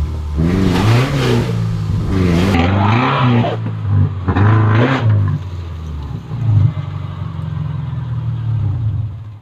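Subaru's flat-four engine revving up and down again and again under load on a rough off-road track, with a rough scrabbling noise over it in the first half. The sound cuts off suddenly at the end.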